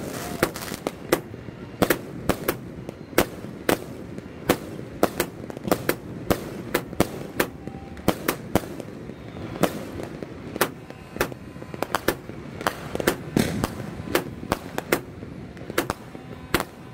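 A 100-shot fireworks cake firing: a fast, irregular string of sharp bangs, a few each second, as its shells launch and burst, over a steady background din.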